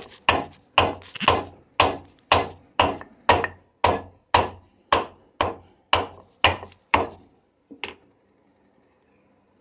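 Pestle pounding in a mortar to crush an ingredient for the tea: about fifteen sharp, even strikes at roughly two a second, then one last strike a little later before it stops.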